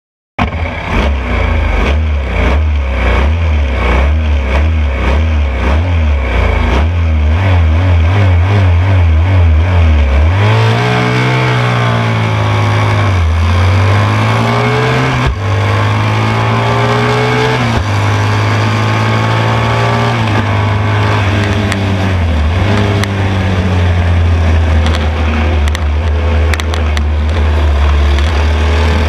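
1972 BMW R75/5 racing motorcycle's 750 cc air-cooled flat-twin engine at racing speed, heard from the bike itself. For about the first ten seconds it gives a low pulsing sound; after that its pitch rises and falls again and again as the rider accelerates, shifts and slows for corners.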